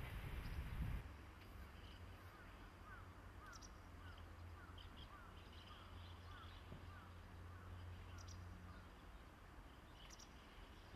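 A train's low rumble cuts off suddenly about a second in. Faint outdoor quiet follows: a low steady hum and birds calling, with a run of short chirps about twice a second and a few higher calls.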